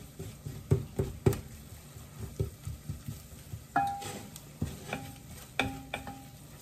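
Wooden spoon stirring a flour-and-onion roux in an enamel pot, with irregular knocks and scrapes against the pot, a few of them ringing briefly. A faint sizzle underneath as the flour browns in the fat.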